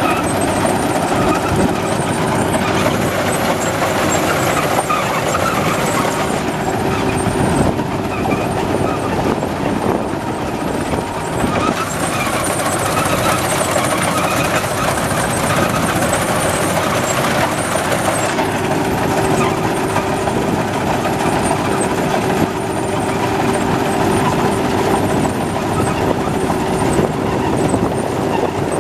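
Maxxi Bimo tracked rice combine harvester running steadily under load as it cuts and threshes lodged rice, with engine and machinery noise and a faint steady hum through it.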